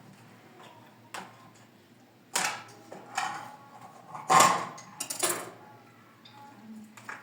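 A run of loud clattering knocks of hard objects being handled, four or five of them about a second apart, with lighter clicks before and after.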